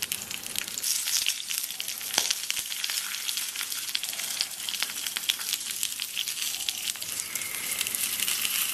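Skewered starch sausages frying in a little oil in a cast-iron sausage pan: a steady sizzle with frequent sharp crackles and pops.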